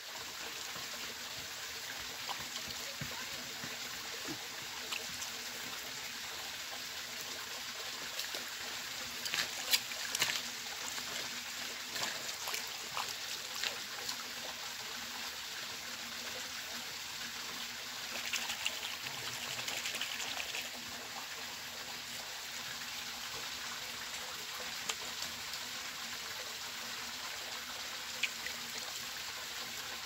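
Irrigation water trickling steadily along a muddy earthen furrow channel and into a pool. A few short clicks come about ten seconds in.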